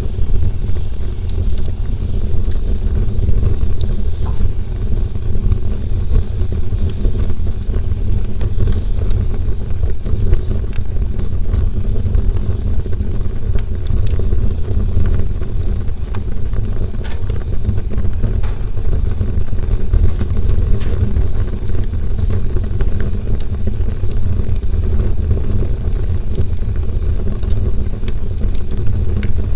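Campfire burning with a steady low roar of flame and scattered sharp crackles and pops from the burning wood.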